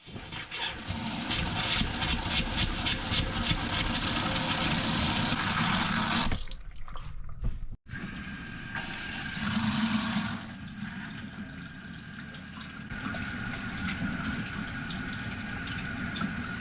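Water rushing through a camper's plumbing as its water heater tank is refilled. The flow breaks off abruptly about eight seconds in, then water is heard running again, quieter.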